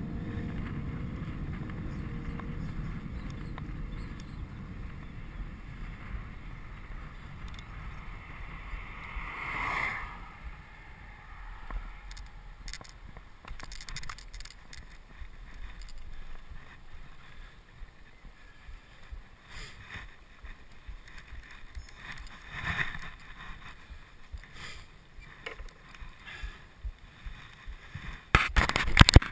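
Wind rush and road noise on an action camera's microphone while riding a recumbent bicycle, a steady low rumble that fades as the ride slows, with scattered light clicks and rattles. Near the end, loud scraping and crackling as the camera is handled.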